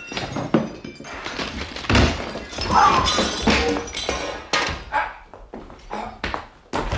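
Radio-play sound effects of an assault: repeated crashes and heavy thuds with breaking and shattering, the loudest crash about two seconds in.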